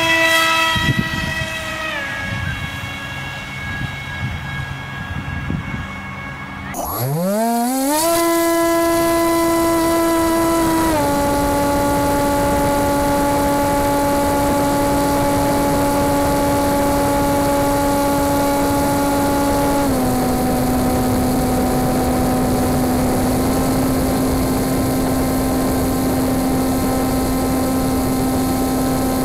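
RC foam plane's electric motor and propeller whining with a steady pitch that changes in steps with the throttle. It drops a notch about two seconds in and dies away near seven seconds, then spins up again to a high, steady whine that eases down a step at about eleven and again at about twenty seconds.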